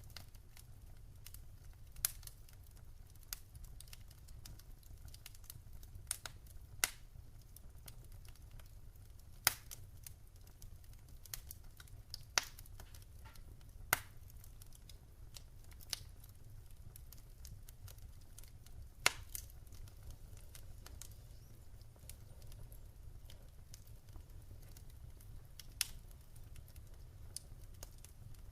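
Wood fire crackling in a fireplace: scattered sharp snaps and pops at irregular intervals, the loudest about ten seconds in and again around nineteen seconds, over a steady low rumble.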